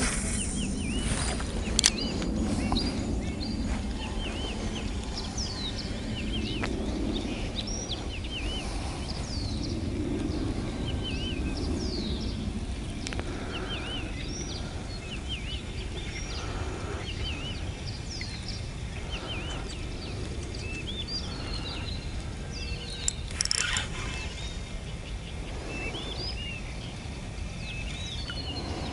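Small songbirds chirping and singing in short repeated phrases over a steady low background rumble, with a sharp click soon after the start and a short louder rustle about four-fifths of the way through.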